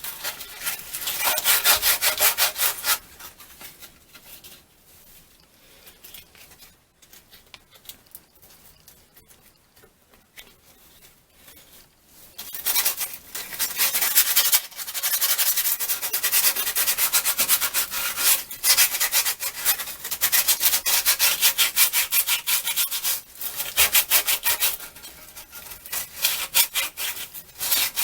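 Sandpaper rubbed in quick back-and-forth strokes over the rusty metal of a MerCruiser engine's circulator hose connector, scraping off surface rust. The sanding stops about three seconds in, leaving a long quiet stretch, then starts again a little before halfway and carries on with a few short breaks.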